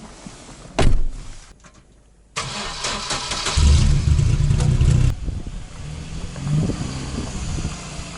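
A loud thump about a second in, then a van's engine starts, runs loudly for a moment and settles into a steady run.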